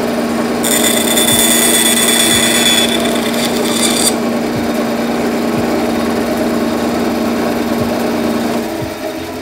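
Bandsaw running with a steady motor hum. About a second in, the blade rips through a thin wooden board for about three seconds, adding a high hissing cutting noise over the hum. The hum drops a little near the end.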